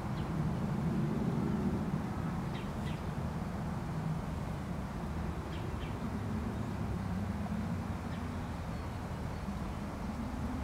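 Outdoor ambience: a steady low rumble with a few short, faint bird chirps now and then, some of them in quick pairs.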